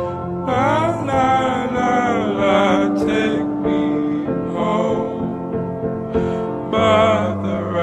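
Slowed-down, pitched-down folk-pop song in a passage without lyrics: a lead melody that bends and slides in pitch over sustained held accompaniment notes.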